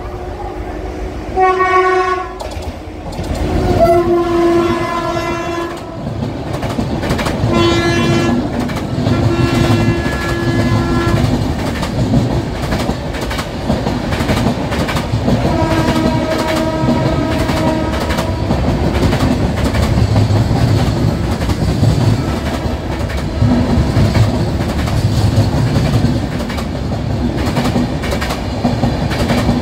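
Indian Railways express train running through a station: the locomotive's horn sounds in several blasts over the first half, some about two seconds long. The coaches then roll past with a steady rumble and wheels clattering over the rail joints.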